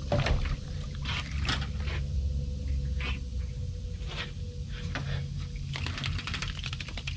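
Scattered short squelches and scrapes of a hooked freshwater eel being handled and unhooked, over a steady low background rumble.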